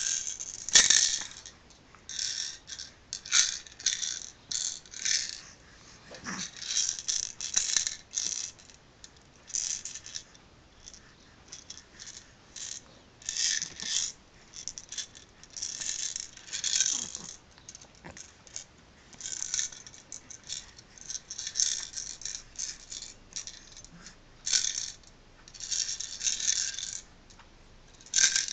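Small plastic toy maraca shaken by hand: irregular bursts of bright rattling, each under a second, with short pauses between them.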